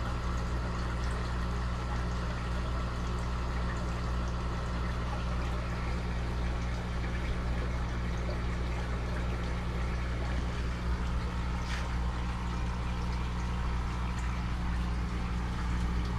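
Water trickling steadily over the low, even hum of a running water pump.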